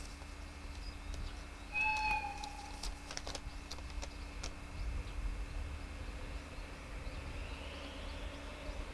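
Rail yard background: a low steady rumble with scattered clicks and knocks, and one short high-pitched tone about two seconds in.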